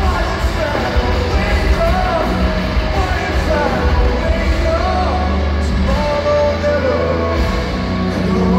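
Live rock band playing, a male singer's voice over electric guitars, bass and drums, recorded from among the concert crowd.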